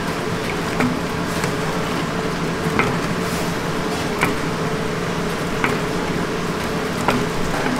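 Wooden paddles stirring and tossing sticky, sauce-glazed fried chicken in a large wok over the heat, with a steady sizzle and a light clack about every second and a half.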